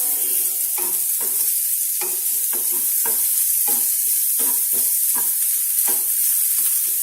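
Chopped onion frying in hot coconut oil in a pan, sizzling steadily, stirred with about two strokes a second.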